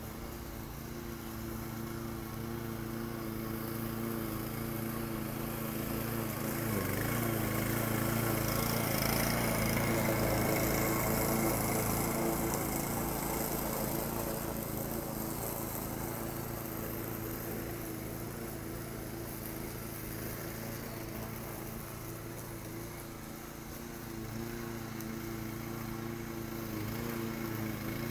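Walk-behind petrol lawn mower engine running steadily while cutting grass. It grows louder as the mower comes close, about a third of the way through, then fades and rises again near the end.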